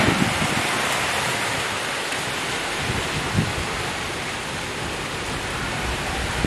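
Steady monsoon downpour: rain falling on trees and foliage, an even hiss that holds at the same level.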